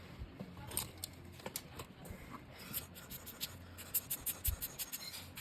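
Light scraping and scattered small metallic clicks from hand work on a watch's rotating bezel, with a quick run of clicks about four seconds in.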